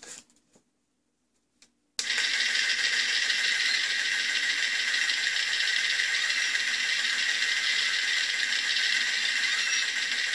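NECA ED-209 figure's built-in sound chip playing a RoboCop movie sound clip through its small speaker, set off by the button on the figure's head. It starts suddenly about two seconds in and keeps going loud, steady and harsh, after a couple of faint clicks.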